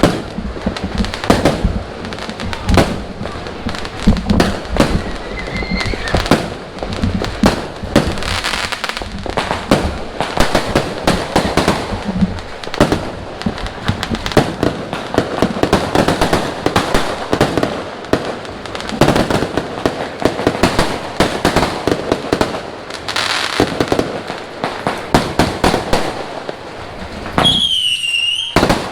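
Many fireworks and firecrackers going off at once: a dense, unbroken run of cracks and bangs overlapping one another, with a short whistling tone near the end.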